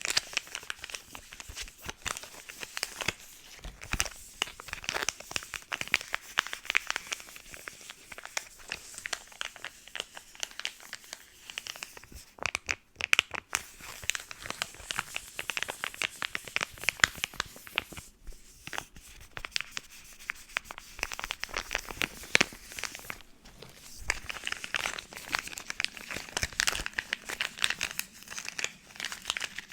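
Close-miked crinkling and crackling of packaging being handled: a dense, irregular run of small crackles and clicks, with two short pauses.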